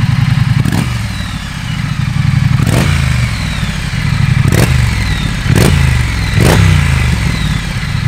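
2021 Triumph Street Scrambler's 900 cc parallel-twin engine idling through its stock Euro 5 high-level twin exhaust, with about five quick throttle blips that rise and fall back to idle. The sound is characterful even under Euro 5 rules.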